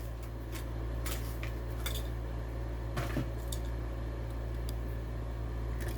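Hot Wheels blister package being opened by hand: a few sharp plastic clicks and crinkles, over a steady low hum.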